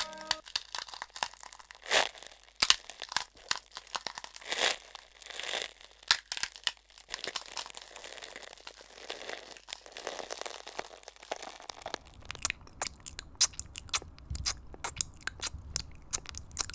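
Irregular crackling and rustling with sharp clicks scattered through it, a few of them louder; a low rumble joins about twelve seconds in.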